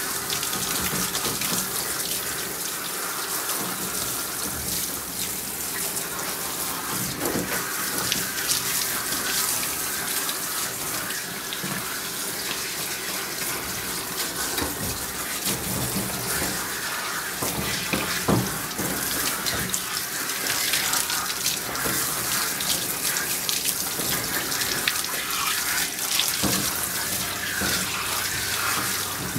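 Pistol-grip bath sprayer on a coiled hose spraying water steadily onto a wet dog's coat in a grooming tub: a continuous hiss of running water.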